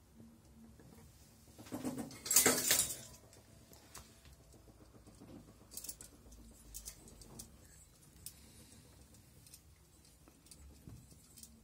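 Hands handling wires and a metal light fitting: a loud rustling scrape about two seconds in, then scattered light clicks and taps.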